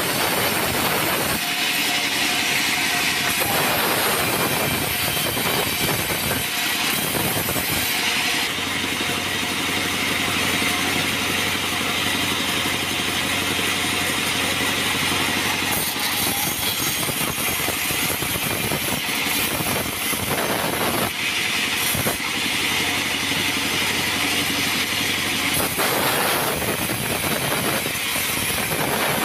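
Band sawmill running and ripping through an acacia log: a steady machine drone under the hiss of the blade cutting wood, which eases and picks up again several times as the log is fed through and turned.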